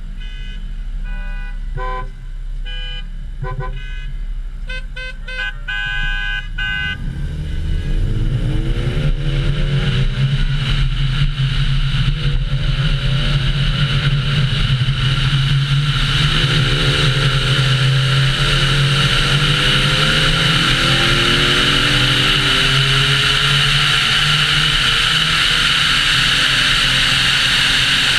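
A car pulls away from a stop and accelerates hard, its engine note rising in several sweeps as it shifts up through the gears. It then runs on at highway speed under heavy wind and road noise. Before it moves off, a string of short pitched tones sounds over the idle for the first several seconds.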